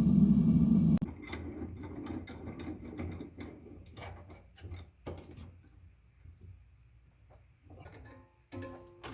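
A steady low roar that cuts off suddenly about a second in, followed by irregular metallic clicks, rattles and knocks.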